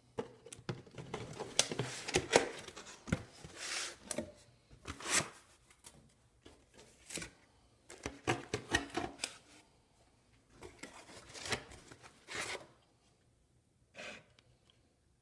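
Cardboard box and its packing being handled as it is unpacked: irregular rustling, scraping and sharp clicks of cardboard flaps and foam as the stereo parts are lifted out, stopping near the end with one last short rustle.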